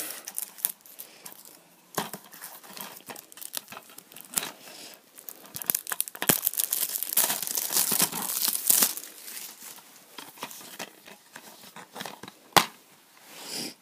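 Clear plastic shrink-wrap being torn and peeled off a DVD case, a run of crinkling and crackling that is densest in the middle. A single sharp click near the end.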